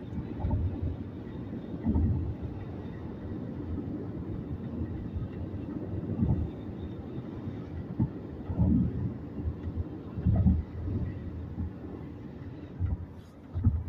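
Road noise inside a car driving at highway speed: a steady low rumble of tyres and engine, with a few louder low swells every couple of seconds.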